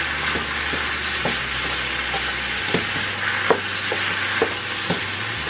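Shredded chicken and diced vegetables sizzling in a frying pan while being stirred with a spatula, with about half a dozen scattered knocks of the spatula against the pan.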